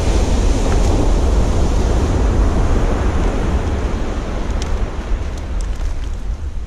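Wind buffeting the microphone over the steady wash of ocean surf breaking on the beach, with a few faint clicks about two-thirds of the way through.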